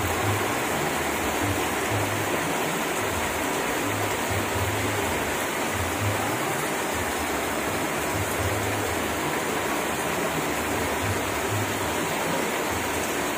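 Heavy rain falling steadily, an even hiss of downpour.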